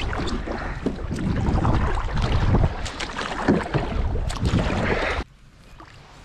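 Kayak out on the water in wind: heavy wind rumble on the microphone with splashing and knocks. It cuts off suddenly about five seconds in, leaving faint water sounds.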